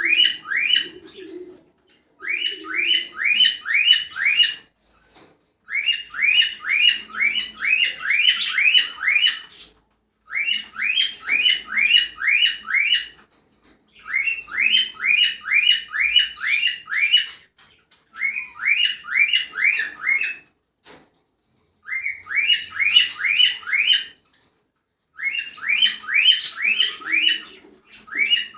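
Cockatiels calling in bouts of quick, sharply rising chirps, about four notes a second, each bout lasting two to four seconds with short pauses between them.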